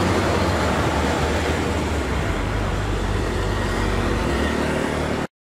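Diesel engine of a Mitsubishi Fuso dump truck running steadily under load as it climbs a hill, with a low engine hum over the noise of slow uphill traffic. The sound cuts off suddenly near the end.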